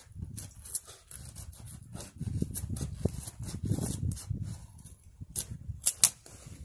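Wind buffeting the microphone in gusts of low rumble, with sharp crackles and pops from the small wood fire burning in an Ohuhu wood-gas stove. The loudest pops come about five and a half and six seconds in.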